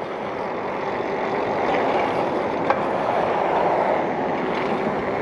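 Steady rushing noise of a mountain bike being ridden, with wind on the microphone and tyres rolling on pavement, swelling a little in the middle. There is one sharp click about two and a half seconds in.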